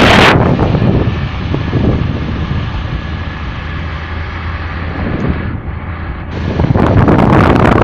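Vehicle driving, with a steady low road and engine rumble under wind gusting on the microphone. The wind drops away about a second in and comes back strongly near the end.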